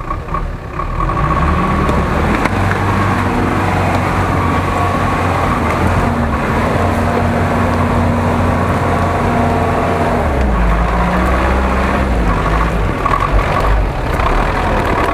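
GAZ-66 off-road truck's engine working hard under load as the truck climbs through mud. It revs up about a second in, holds steady, and drops in pitch about ten seconds in.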